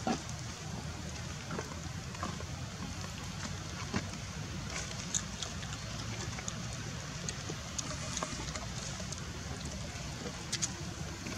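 Steady outdoor background noise with scattered soft clicks and ticks, a sharper click right at the start.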